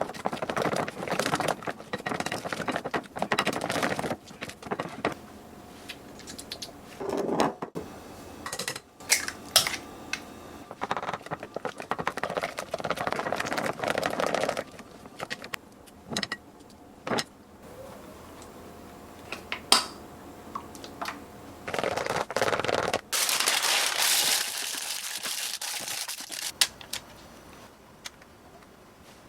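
A utensil clicking and scraping against a bowl in bursts as cream cheese batter is mixed, with short pauses between bouts.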